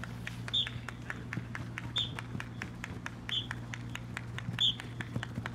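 Footsteps of footballers running quick agility steps through slalom poles on grass, a fast, uneven run of light taps. A short high chirp repeats about every second and a half over a steady low hum.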